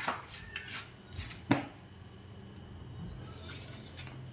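Two sharp knocks, one at the start and a louder one about a second and a half later, then a faint steady low hum.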